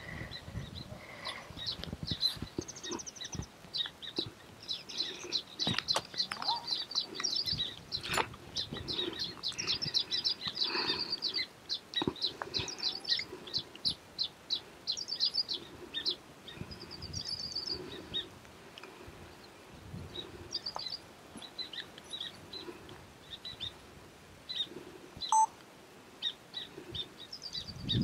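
A colony of baya weavers chattering: many overlapping rapid runs of short, high-pitched chirps and trills. A few sharp clicks come in between.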